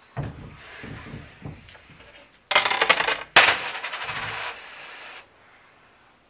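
Coins tossed into a slatted wooden offertory box: a few light knocks, then two loud bursts of clattering as the coins hit the slats and rattle down inside, fading out about five seconds in.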